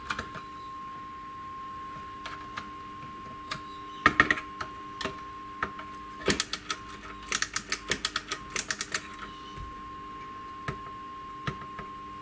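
Solid-state guitar amp passing a steady test tone through its speaker while its circuit board is prodded with a wooden chopstick. The tone crackles with sharp clicks, and for about three seconds past the middle it cuts out under a run of clicks before coming back. This is an intermittent connection, which the repairer puts down to the input jack with likely lifted traces.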